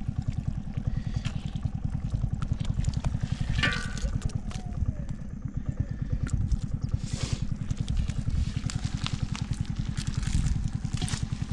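Small single-cylinder engine running steadily with a rapid, even low chugging, with scattered clicks and splashy sounds over it.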